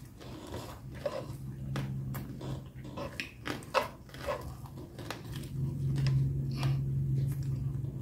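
Close-up mouth sounds of chewing deep-fried pork knuckle and rice with the mouth closed: wet smacks and clicks, with a low hummed "mmm" twice, the second longer and louder.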